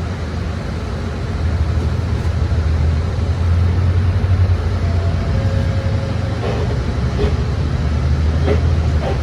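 City bus heard from inside the cabin while moving: a steady low engine and road drone that swells a little after a second or so, with a few short clicks in the second half.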